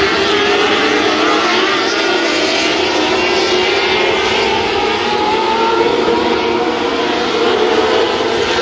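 A field of 600cc wingless micro sprint cars racing, their high-revving motorcycle engines overlapping in a loud, steady drone, with many pitches rising and falling as the cars accelerate and back off.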